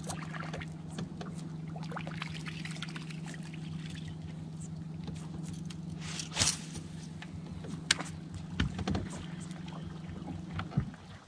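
Bow-mounted electric trolling motor on a bass boat humming steadily at one pitch while the propeller churns the water; it cuts off shortly before the end. A sharp swish about six seconds in comes with a cast.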